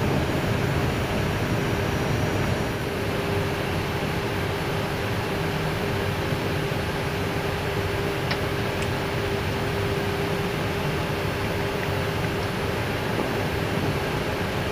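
Airbus A319 cockpit noise while taxiing slowly onto the stand: the jet engines running at idle, heard as a steady hiss with a steady hum beneath it.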